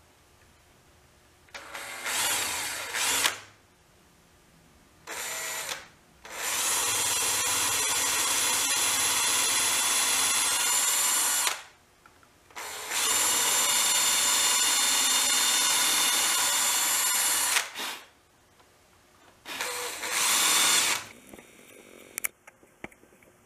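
Cordless drill boring an angled pocket hole into a hardwood board, run in five bursts with a steady whine, the two longest about five seconds each. A few sharp clicks follow near the end.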